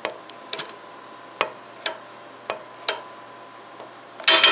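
Filter wrench clicking against the hydraulic oil filter as the filter is snugged down a quarter turn: sharp metallic clicks about every half second, then a quick cluster of them near the end.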